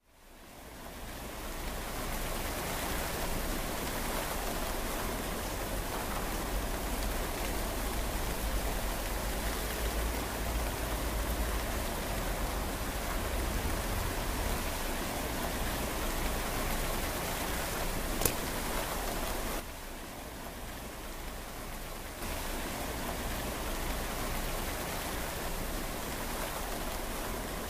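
Steady rain falling, fading in over the first two seconds and turning a little softer for a couple of seconds about twenty seconds in. A single sharp click about eighteen seconds in.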